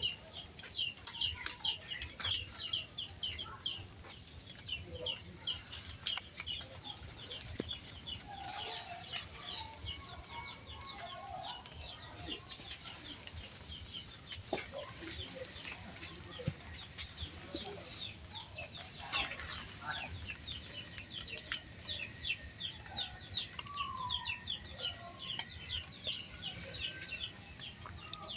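Chickens clucking, with a constant, dense high chirping of many small calls throughout and a brief hiss about two-thirds of the way in.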